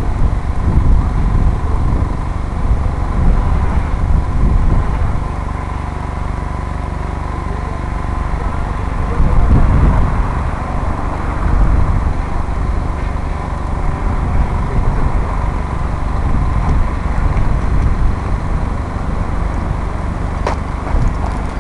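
Wind buffeting the microphone, a gusty low rumble that rises and falls, with a thin steady whine over it.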